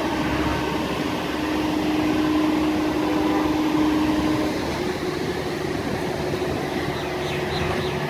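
A heavy engine running steadily with a constant hum, its tone shifting about halfway through.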